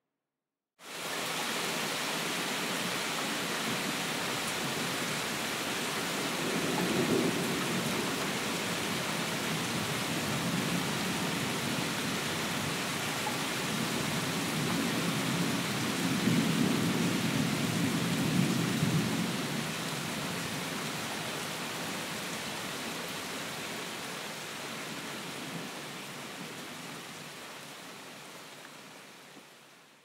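Steady rain with rolling thunder: a rumble about seven seconds in and a longer, louder roll through the middle. The rain sets in abruptly just under a second in and fades away near the end.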